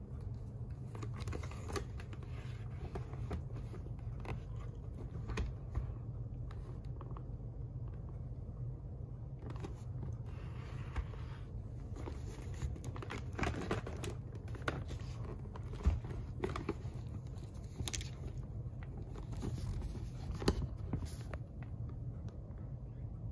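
Rustling and scraping of a motorcycle helmet's fabric-covered foam liner and ear pad being handled and pressed into place, with scattered small clicks over a steady low hum.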